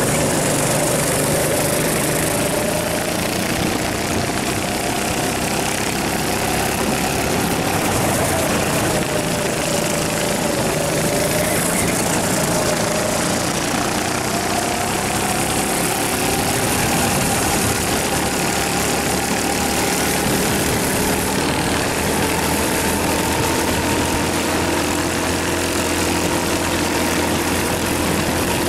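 Rental go-kart engine running hard at race speed. Its pitch dips in the first few seconds through a corner, then climbs steadily through the second half as the kart accelerates down the straight.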